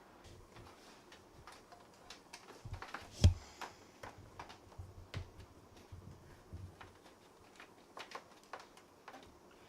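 Scattered small clicks and taps of power cables and plastic connectors being handled and plugged in inside a computer case, with one louder knock about three seconds in.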